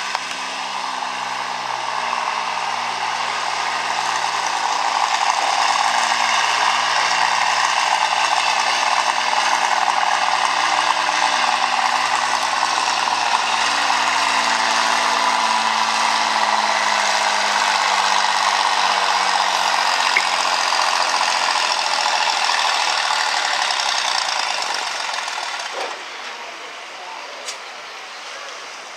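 An Oliver farm tractor's engine running hard under load while pulling a sled down a dirt track. Its pitch slowly sags as the pull goes on, then it eases off and goes quieter near the end as the pull finishes.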